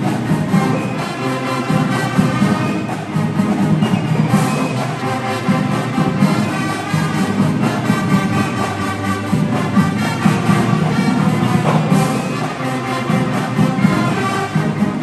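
High school marching band playing loudly, brass to the fore.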